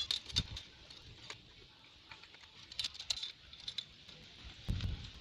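Aluminium tubes of a Salyut-2 folding kayak frame clicking and clinking as they are handled and fitted into the frame's joints, in short scattered bursts, with a duller knock near the end.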